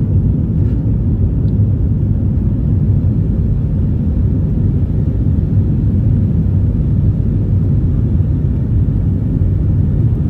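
Steady low rumble of an Airbus A320-family jet in flight, heard inside the passenger cabin: engine and airflow noise, even in level throughout.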